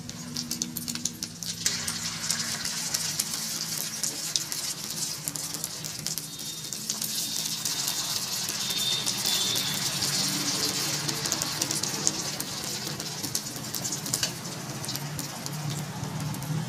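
Egg frying in hot oil in an iron wok, a steady sizzle with fine, rapid crackling, as a metal spoon works the egg in the pan.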